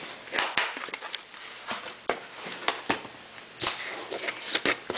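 Cardboard box being handled and set down on a wooden table: a string of knocks and clicks with a few short rustles and scuffs.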